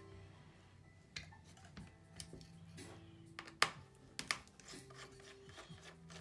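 Small clicks and scrapes of a screwdriver and fingers on a laptop hard drive and its plastic bracket inside a Mac mini's case. The sharpest click comes about three and a half seconds in. Soft background music with held notes plays underneath.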